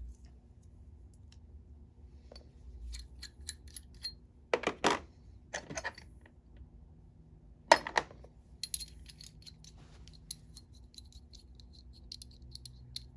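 A few sharp blows in two groups, about four and a half and about eight seconds in, of a hammer on a steel snap setter, setting a snap into leather over an anvil. Light metal clicks and taps of small snap parts and tools being handled come before and after.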